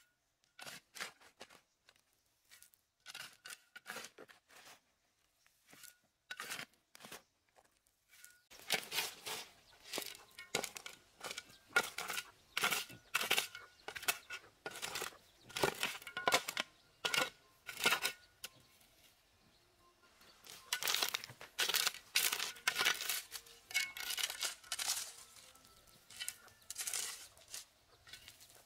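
Shovel blade repeatedly scooping and scraping through loose, stony soil. The strokes are sparse at first, then come in quick runs with a short pause in the middle.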